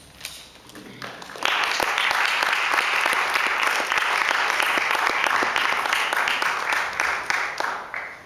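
Audience applauding: a few scattered claps at first, then full steady applause from about a second and a half in, thinning out near the end.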